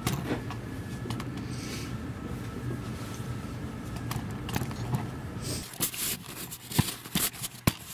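A steady low hum with a faint high whine, then, after about five and a half seconds, the hum drops away and a hand fumbling right at the camera gives a string of sharp knocks, rubs and clicks on the microphone.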